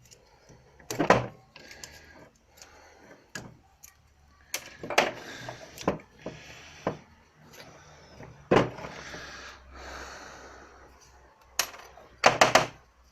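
Hand tools and small metal parts clicking, knocking and scraping as a cotter pin is worked out of a pivot joint on a windshield wiper linkage. The sounds come as scattered sharp knocks with a few short scraping stretches in between.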